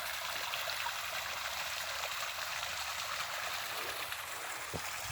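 Spring-fed stream running steadily, a constant rushing and trickling of water.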